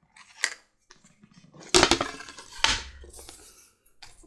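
A few knocks and clatters of metal hand tools and leather being handled on a workbench, with two louder knocks in the middle.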